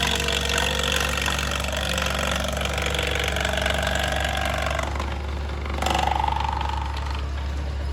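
Farmall Super C's four-cylinder engine running steadily on the belt pulley, driving an antique belt-driven wood planer, with the planer's whine above the engine hum. The whine changes about five seconds in, and a tone about a second later slowly falls in pitch.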